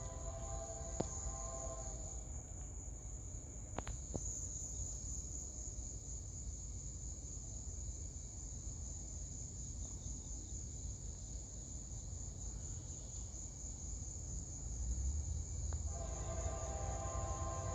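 A steady, high-pitched insect chorus over a low rumble. A distant diesel locomotive horn sounds a chord in the first two seconds and again near the end as the freight train approaches the crossing.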